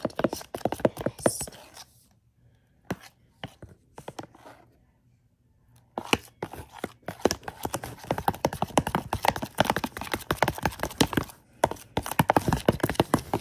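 Metal spoon stirring a wet, sticky glue-and-activator slime mixture in a plastic tub: rapid clicks, scrapes and squelches as the mixture starts turning into slime. The stirring stops about two seconds in and starts again around six seconds in.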